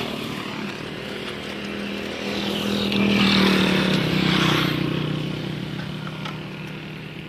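A motorcycle engine running, growing louder to a peak about three and a half seconds in and then fading away.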